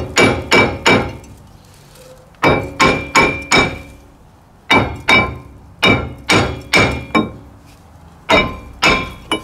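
Hammer blows on the centre of a 2009 Kia Ceed's front brake disc, in five quick bursts of three to five strikes with short pauses between, each strike leaving a short metallic ring. The disc is being knocked loose because it has rusted fast to the hub's centring ring.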